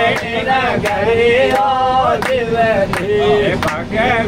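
A man singing a sakhi, a Rajasthani folk verse, in long held, wavering notes, over the low rumble of a moving train. Sharp clicks come at a steady beat, about one every two-thirds of a second.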